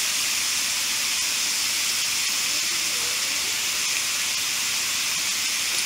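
Raw ground beef sizzling in a hot nonstick skillet: a steady, even hiss.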